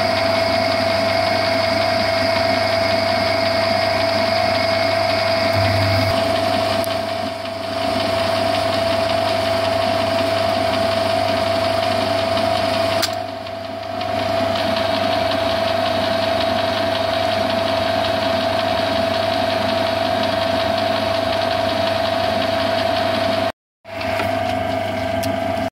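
Metal lathe running steadily while turning down a rusty steel shaft held on a tailstock centre, with a constant gear whine over a low motor hum. The sound dips briefly twice and cuts out for a moment near the end.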